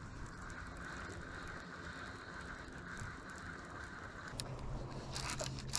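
Baitcasting reel being cranked in a retrieve, its gears giving a steady whir that stops about four seconds in. A low steady hum then starts, with a few sharp clicks near the end.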